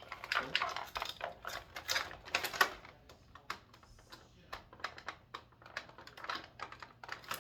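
Plastic action-figure packaging being handled and worked loose: a run of irregular sharp clicks and crackles, thick at first, thinning out in the middle and picking up again near the end.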